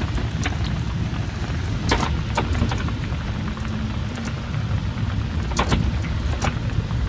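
Rain falling on a moored sailboat, with individual drops ticking sharply here and there close by, over a steady low rumble.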